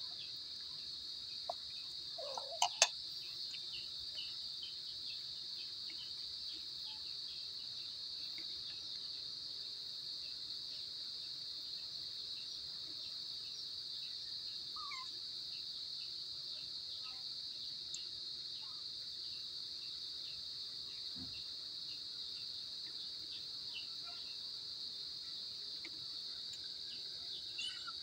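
Steady, unbroken high-pitched insect chorus, with faint scattered ticks from two kittens eating wet tuna out of a metal dish. Two sharp clicks stand out about two and a half seconds in.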